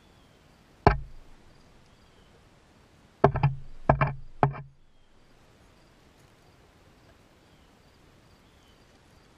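Hens pecking at the camera and its legs: one sharp knock about a second in, then a quick run of four or five more a couple of seconds later, hard and close on the camera's own microphone.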